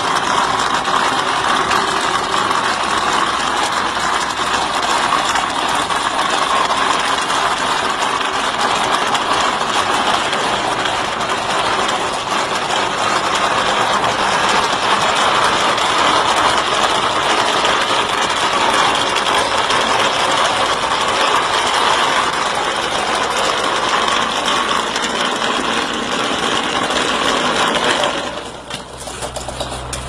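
E-Z Renda automatic wall-plastering machine running steadily, its motor and mechanism working as it presses mortar onto a block wall. Near the end the noise drops abruptly and gives way to a quieter, lower hum.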